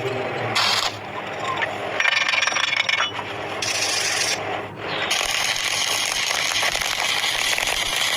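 Harsh, rasping metalwork noise on iron pieces. It stops and starts several times, then runs steadily from about five seconds in.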